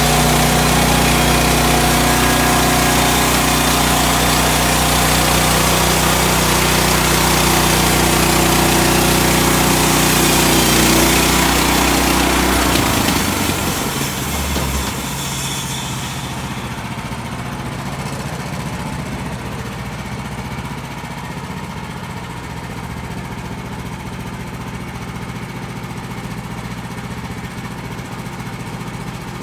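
Woodland Mills HM130 sawmill's gas engine running hard at a steady speed, then about halfway through it drops back to a quieter idle.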